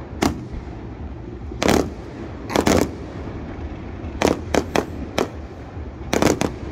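Aerial fireworks shells bursting: about ten sharp bangs at uneven intervals, some in quick clusters of two or three.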